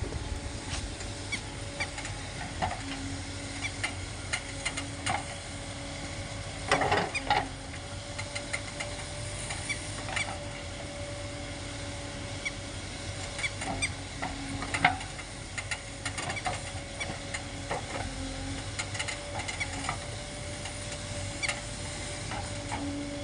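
Tata Hitachi Shinrai Prime backhoe loader working: a steady engine hum under scattered clicks and knocks. The loudest clatter comes about seven seconds in, with another sharp knock at about fifteen seconds.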